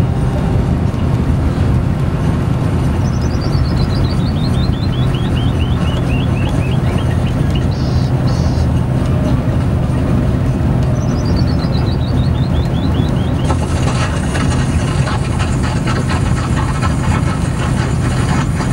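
A steady engine drone with a strong low hum, heard up close. Twice, a run of rapid high chirps falls in pitch over a few seconds. About two-thirds of the way through, more hiss joins the drone.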